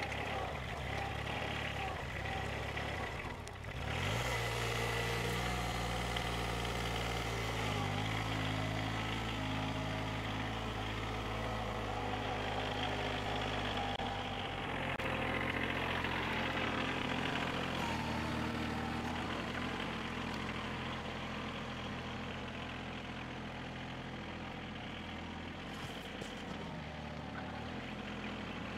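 Compact farm tractor's engine running under load as its front loader bucket scrapes and levels soil; the engine note rises about four seconds in and shifts up and down several times after.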